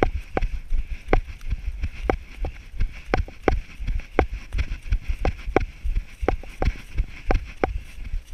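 Footsteps of a person running on a grassy, muddy trail: even thumps at about three strides a second, each with a sharp tap on top.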